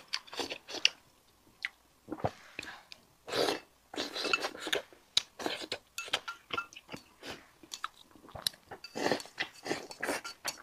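Close-miked chewing and mouth sounds of someone eating, with irregular sharp clicks from chopsticks against a ceramic bowl.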